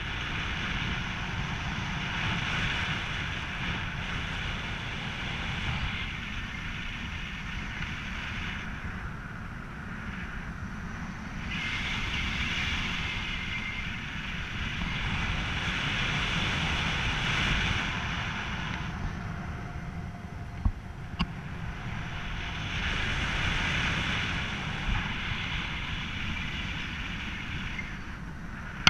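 Wind rushing over the microphone during an unpowered glide under a paraglider wing with the paramotor engine off, a low rumble with a hiss that swells and fades every several seconds.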